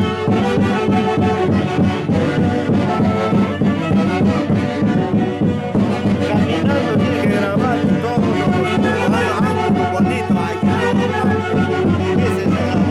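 A Huancayo folk orchestra playing Santiago music: several melody instruments in harmony over a steady beat, without a break.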